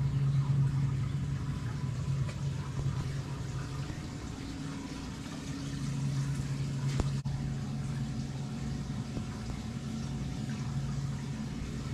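Steady low hum with a rushing, water-like noise over it. The hum fades for a couple of seconds near the middle and comes back, and there is a single sharp click about seven seconds in.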